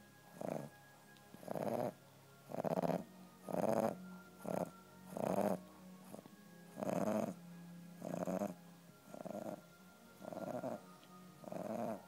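French bulldog snoring: short rasping snores in a steady rhythm, about one a second.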